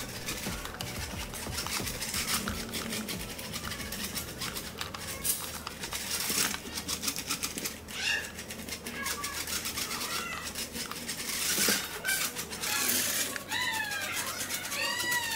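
Small DC motor and plastic gear train of a homemade remote-control car running on a single 3.7 V cell, a dense rattling clatter as it drives across the floor; an extra large gear has been added to raise its torque. From about eight seconds in, short high chirping calls join in, most of them near the end.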